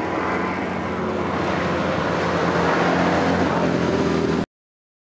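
2-litre V-twin four-stroke engine of an ARCH KRGT-1s motorcycle running as it rides up the hillclimb. The engine note is steady and loud, and it cuts off abruptly about four and a half seconds in.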